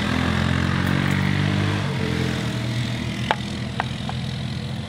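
A small engine runs steadily in the background, its pitch shifting slightly about two seconds in. Near the end come three light clicks as hands work the plastic cap on a metal can of xylene.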